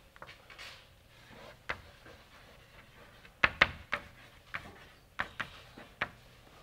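A string of about eight light, sharp knocks and clicks at irregular intervals, a quick cluster of three near the middle, over faint room noise.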